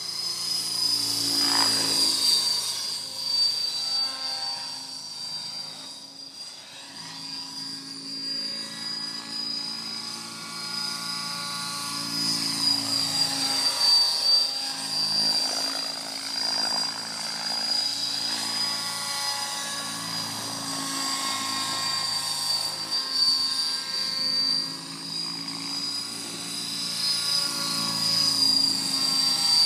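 Logo 800 electric radio-controlled helicopter flying 3D aerobatics: a steady high whine over rotor noise whose pitch keeps shifting. The noise swells and fades as the helicopter passes close and pulls away, loudest about two seconds in, midway and near the end.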